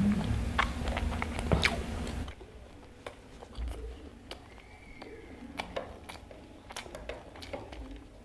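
Close-miked chewing and mouth sounds while eating Indian food: a run of short wet clicks and smacks. A low background hum drops away about two seconds in.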